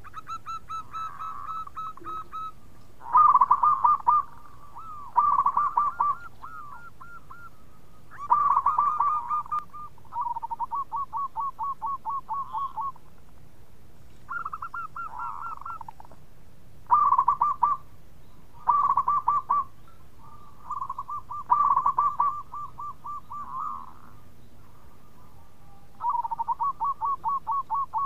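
Zebra dove (perkutut) cooing: about a dozen short phrases, each a quick rolling run of staccato notes, some loud and some softer, with short pauses between them.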